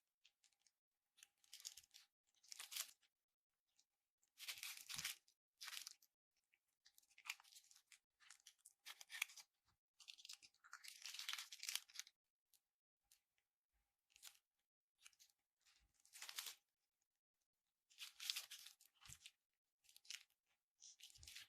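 Slime being handled by hand: a string of short, quiet, crisp crackles and tearing noises at irregular intervals, with pauses between them.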